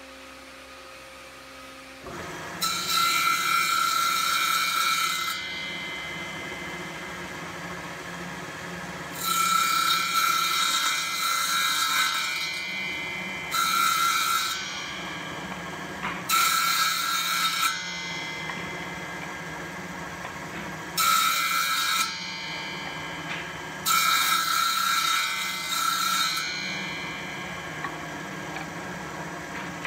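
A circular saw blade on a saw bench starts up about two seconds in and runs steadily. Six louder bursts, each one to three seconds long, come as it cuts into wooden rails to shape the stepped tenon ends for joints.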